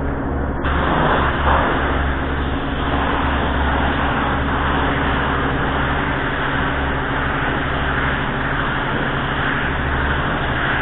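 Steady hiss of compressed air through a gravity-feed paint spray gun spraying car bumper covers, with a steady low hum underneath.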